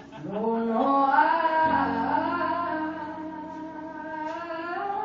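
Live concert music heard from the audience: a woman singing held notes that slide up and down, over a steady instrumental backing.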